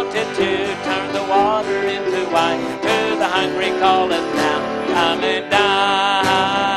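A man singing a gospel song with a strong vibrato while strumming a steel-string acoustic guitar, holding a long note near the end.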